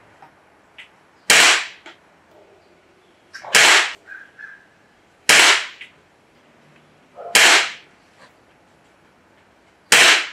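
Gamo Wildcat Whisper .22 break-barrel air rifle with a shrouded barrel firing five shots, each a short, sharp crack, about two seconds apart.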